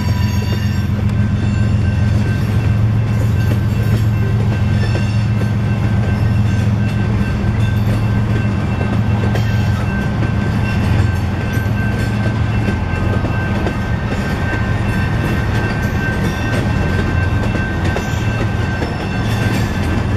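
Freight train of loaded tank cars rolling past at close range: a steady, loud rumble of wheels on rail and diesel engine noise from the train pulling away. Thin steady high tones ring over the rumble throughout.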